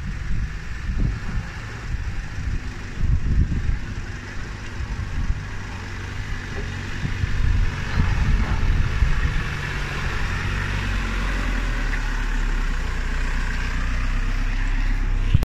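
Off-road 4x4 vehicle engine running with an uneven low rumble, settling into a steadier hum about two-thirds of the way in, then cutting off suddenly just before the end.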